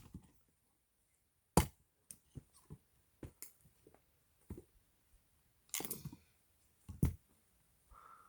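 Axe strikes splitting firewood logs: two sharp blows, about one and a half seconds in and again near seven seconds, with a cluster of hits around six seconds and lighter knocks of wood between.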